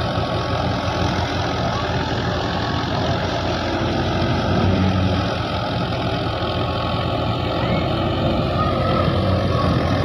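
Engine of a harvesting machine running steadily: a low hum under a dense, even mechanical rush.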